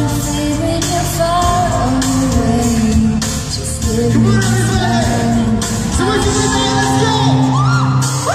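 Live pop song through a concert sound system: a sung melody over steady accompaniment, with shouts from the audience.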